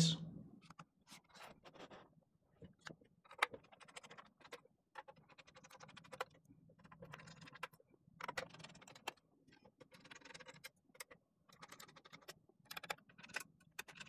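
Faint, irregular clicks, taps and scrapes of a Helix Lab Aaru aluminum TKL keyboard being taken apart: its case screws being unscrewed and the metal case handled.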